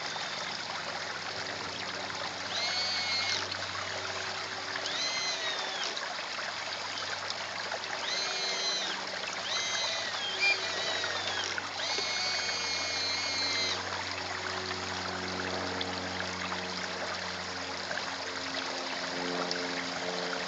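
Small pond waterfall trickling and splashing steadily, broken by several short high-pitched whines that rise and fall. Soft music comes in near the end.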